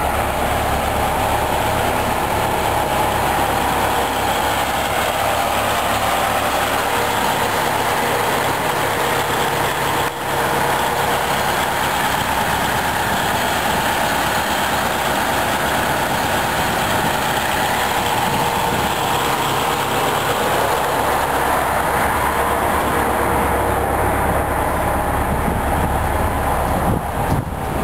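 Detroit Diesel 8V71 two-stroke V8 diesel in a 1972 Flxible New Look bus, idling steadily.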